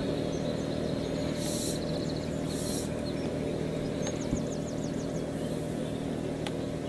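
Small birds chirping in short high calls, including a quick run of falling notes about four seconds in, over a steady low hum, with one sharp click near the end.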